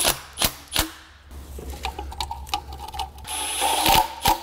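Cordless power tool driving exhaust manifold heat shield bolts on a car engine. It runs in short bursts, the longest about three seconds in, with sharp clicks of the tool and socket on the bolts in between.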